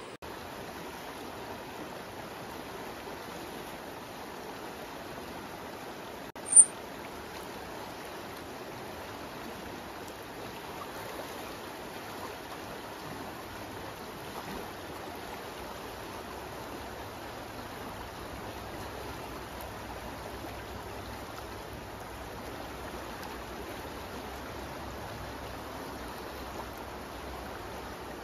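River water rushing steadily, with one brief sharp click about six and a half seconds in.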